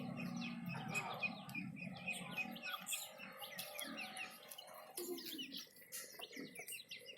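Many birds chirping busily: a dense run of short, quick, falling chirps, some overlapping.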